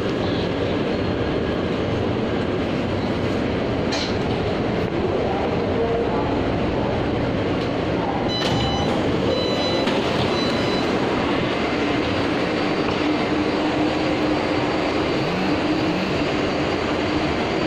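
Taipei MRT metro train running, with a steady loud rumble of the car and its wheels on the track. A few short high beeps come about eight to ten seconds in.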